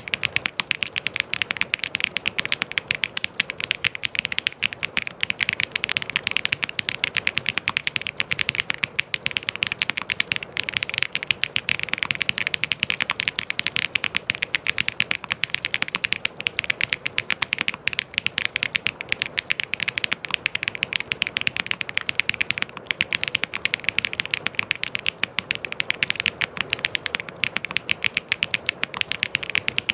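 Continuous fast typing on a mechanical keyboard: a dense, steady stream of key clicks.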